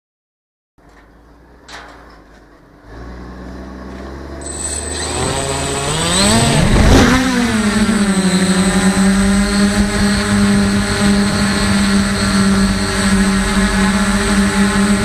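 Electric motors and propellers of a DJI F450 quadcopter, heard from its onboard camera. After a click, the motors spin up from a low hum, their whine rising and dipping as the craft lifts off about six seconds in, then holding a steady, loud buzz in flight.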